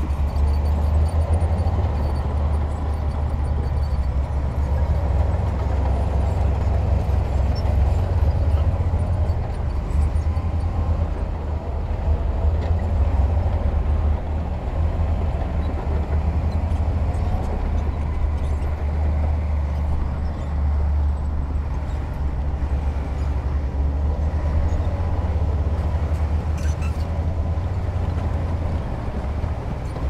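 Heavy earthmoving equipment's diesel engine running steadily, with a strong, even low-pitched drone.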